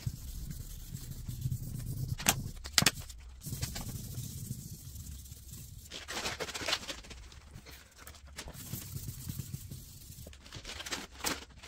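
Hand rubbing strokes on the wet, freshly sanded clear coat of a car door, scratchy and uneven, with two sharp knocks between two and three seconds in.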